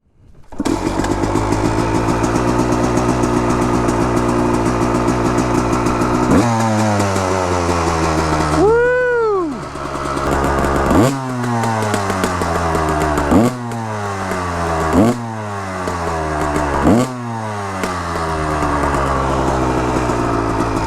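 Honda CR250's 250 cc single-cylinder two-stroke engine running steadily, then revved in several sharp blips, the pitch sliding down after each one.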